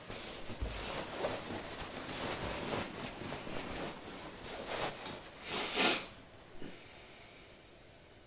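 Rustling of kimono and hakama fabric as a kneeling person moves on tatami and leans forward into a bow, in irregular swells with a soft low thump under a second in and a louder brief swish of cloth about five and a half seconds in.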